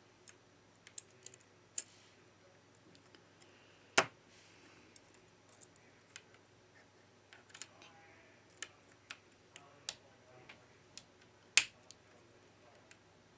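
Small, sharp clicks and ticks of fine metal tweezers working on a smartphone motherboard's camera modules and connectors, irregular and sparse, with two louder snaps about four seconds in and near the end.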